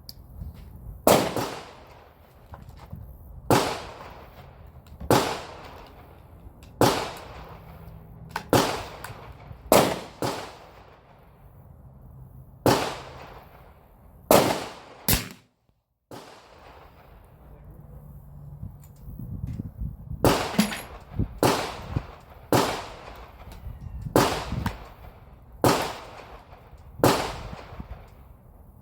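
A series of about sixteen sharp gunshot bangs, each trailing off in a short echo, one to two seconds apart, with a brief gap of dead silence about halfway through.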